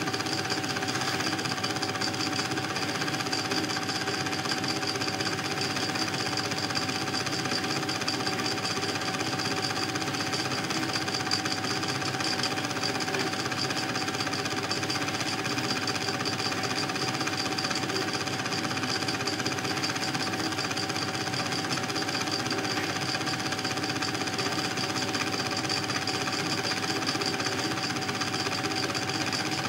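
Home-movie film projector running: a fast, even mechanical clatter with a steady whine, unchanging throughout.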